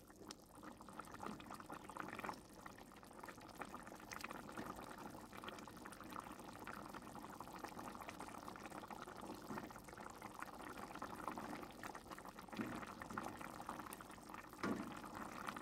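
Palm-sugar braising sauce with eggs and tofu simmering in a wok: faint, steady bubbling and popping, with a wooden spatula stirring through it now and then.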